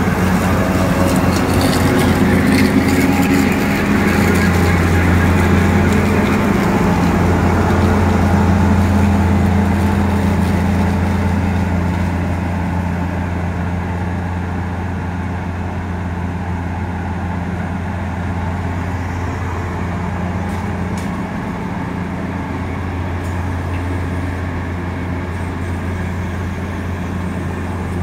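New Holland TC5070 combine harvester running as it harvests maize with its corn header, a steady low engine and machinery drone. It is loudest for the first ten seconds or so as it passes close, then settles quieter and steady as it moves away.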